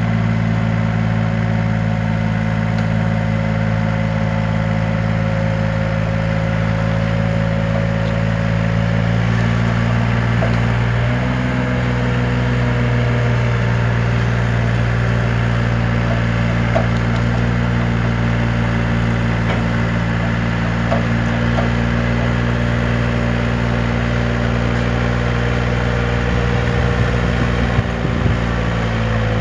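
Yanmar B25V mini excavator's diesel engine running steadily, its note shifting slightly about ten seconds in, with a few faint knocks later on.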